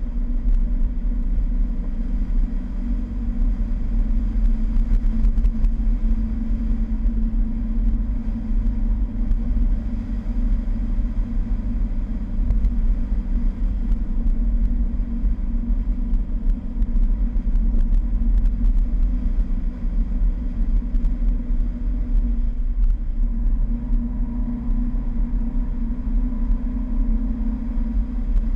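Fiat 1200 Spyder's four-cylinder engine running steadily under way, heard through heavy wind rumble on a bonnet-mounted camera's microphone. The engine note shifts about 23 seconds in.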